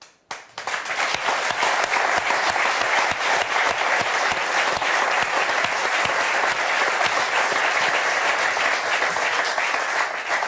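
Studio audience applauding: dense clapping that starts just after a brief silence, fills out within the first second and holds steady.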